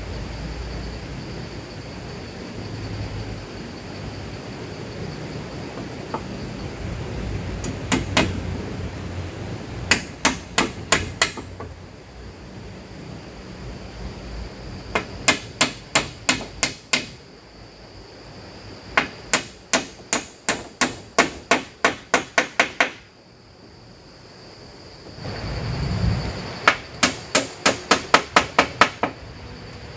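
Hammering: sharp strikes, about four a second, in five runs of a few to a dozen blows with pauses between.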